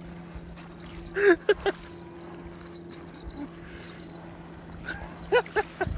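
A steady low hum, with a person's brief vocal sounds about a second in and again near the end.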